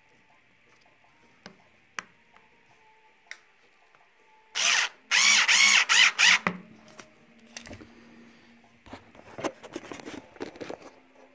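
A cordless drill driver runs in several short bursts of motor whine about halfway through, driving a grip stud into a lug of a fat bike tire. Quiet clicks and rattles of handling come before and after.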